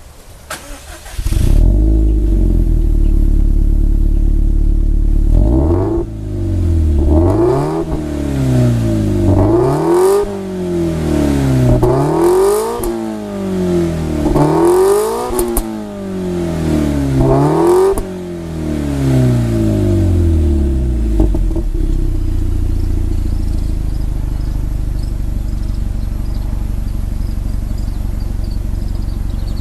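Subaru Impreza WRX STI's EJ20 turbocharged flat-four running through an HKS Super Turbo Muffler. It idles steadily, then is revved five times in a row, each rev rising and falling in pitch, and settles back to a steady idle.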